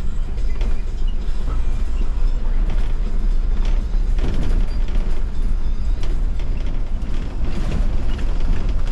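Cabin noise of a MAN city bus under way, heard from the driver's seat: a steady low drone from the engine and tyres on a wet road, with rattles and creaks from the bodywork.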